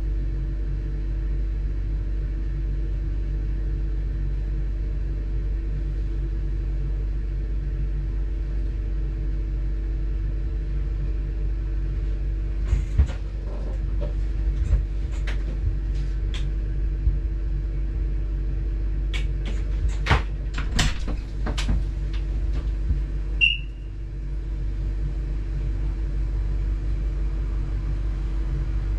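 Train running steadily, heard from inside the driver's cab: a constant low rumble and hum. Midway a scatter of short clicks and knocks, and a few seconds before the end one brief high beep.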